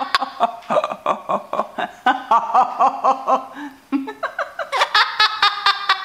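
Amazon parrot laughing in imitation of a person: fast runs of short, high-pitched 'ha-ha' notes, about five a second, with a pause of about a second midway.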